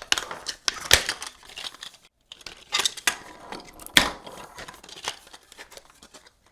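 3D-printed plastic parts being handled and snapped together as the articulated legs are pushed onto the body: a series of sharp plastic clicks and knocks, loudest about a second in and about four seconds in, with light rustling of plastic in between.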